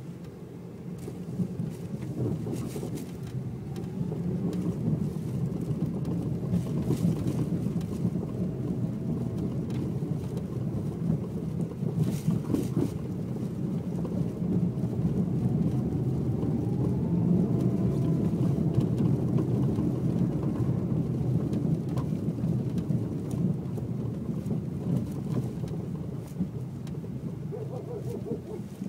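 A Lada Vesta on the move, giving a steady low road-and-tyre rumble that swells and eases, with a faint whine rising and falling over it.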